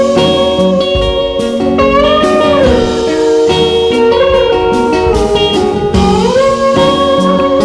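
Background music: a blues-style tune led by a slide guitar, its notes gliding up and bending back down over sustained chords.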